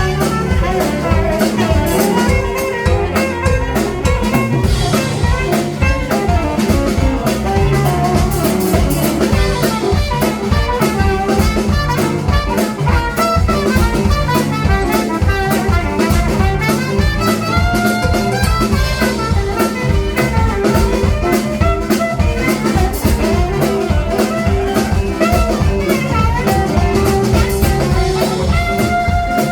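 Live blues band playing an instrumental passage: a drum kit keeping a steady beat under bass and a lead instrument, with no singing.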